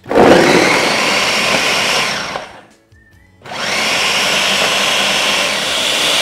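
Ninja 72 oz. Total Crushing blender running its Auto-iQ Blend program on frozen strawberries and liquid, crushing the frozen fruit. The motor starts abruptly, runs about two seconds, stops briefly, then starts up again and runs on, as the program pulses and pauses.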